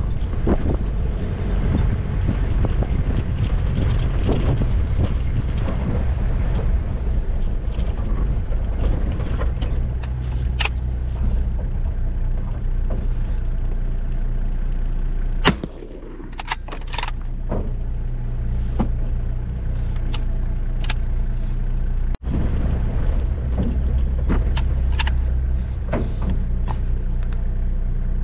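4x4 vehicle driving slowly over a rough dirt track, its engine running steadily, with clunks and rattles from the body and load. About halfway through comes one sharp knock; the engine note then drops away and builds back up over a few seconds.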